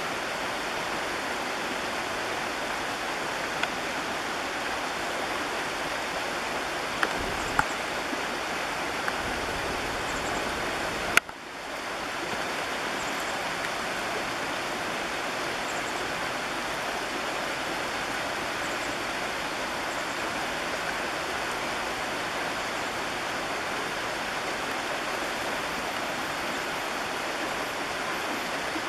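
Shallow creek water rushing steadily over a riffle. A few faint clicks, and one sharp click about eleven seconds in, after which the sound drops out briefly and comes back.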